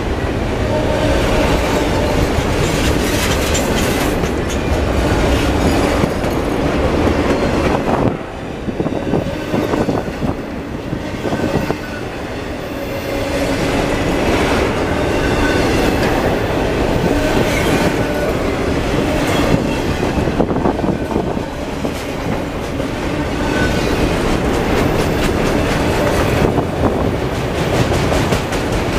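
Freight train of empty autorack cars rolling past close by: a steady rumble of steel wheels on rail, with clicking over rail joints and now and then a short, faint wheel squeal.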